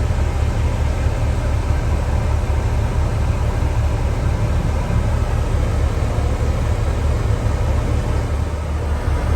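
Large harvest machine's engine running at a steady speed: a constant low rumble with an even hiss over it.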